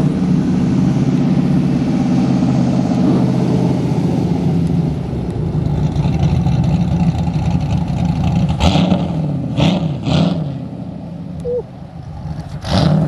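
Engine of a modified Nissan S13 coupe running as the car rolls slowly past, with three quick throttle blips between about eight and a half and ten seconds in and one more near the end.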